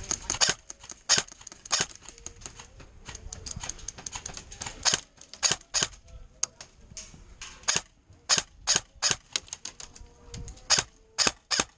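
Airsoft guns firing during a game: many sharp cracks at irregular intervals, some in quick runs of shots.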